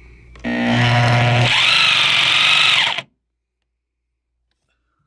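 DeWalt DW309 corded reciprocating saw's motor running on the trigger, a low hum turning into a high whine about a second in, then stopping abruptly. The motor spins but the blade holder does not reciprocate: the saw's drive is broken.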